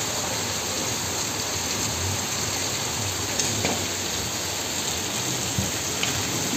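Heavy rain falling steadily, an even unbroken hiss with a few faint clicks.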